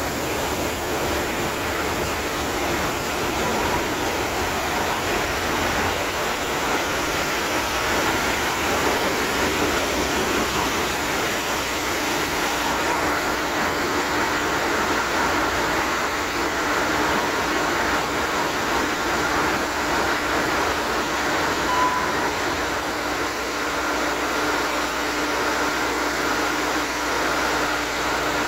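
Large slow-speed two-stroke MAN B&W marine diesel engine running steadily, a dense, even machinery din in the engine room.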